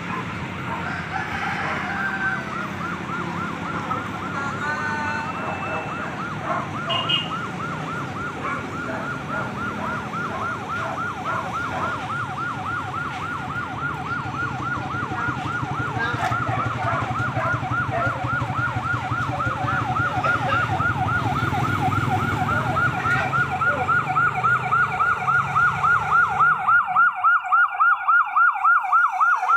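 Motorcade emergency-vehicle sirens on a rapid yelp, sweeping up and down about five times a second and growing louder toward the end as the vehicles approach, with a second siren joining near the end. Vehicle engines rumble underneath until shortly before the end.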